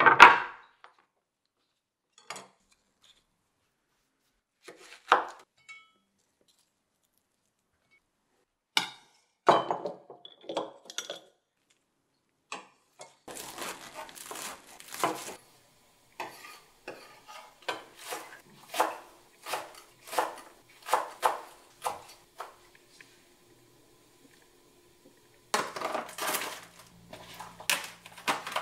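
Kitchen knife chopping garlic chives on a wooden cutting board, in runs of quick knocks, amid scattered clinks and knocks of bowls and the board being handled. A loud clack right at the start.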